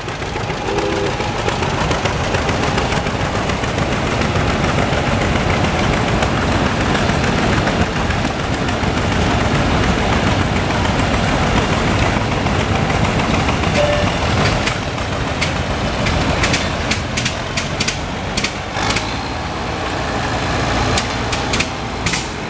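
Antique John Deere tractor engines running as the tractors drive past, a steady loud rumble; in the last few seconds a run of sharp pops sounds over it.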